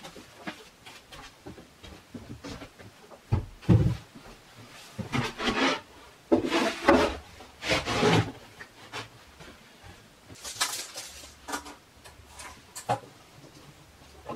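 A large solid cedar board being handled on a plywood workbench: two heavy thuds about four seconds in, then wood scraping and rubbing against wood as it is slid into place, with scattered knocks and clicks later.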